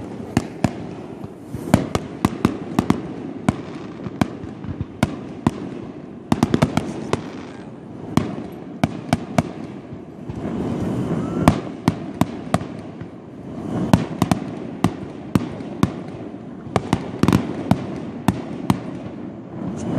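Fireworks going off: irregular sharp bangs and pops, often several in quick succession.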